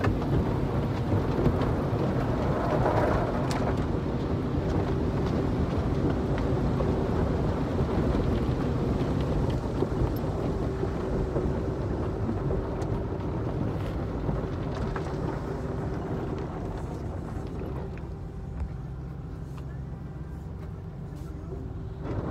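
Car wash water spray pounding on the car's roof and windows, heard from inside the cabin as a steady heavy rush like a downpour, with a low machine hum under it; it eases somewhat near the end.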